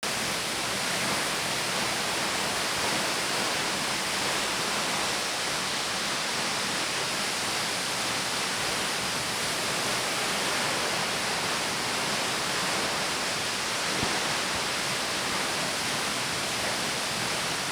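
Waterfall heard close up from the path behind the falls: a steady, unbroken rushing of falling water and blown spray.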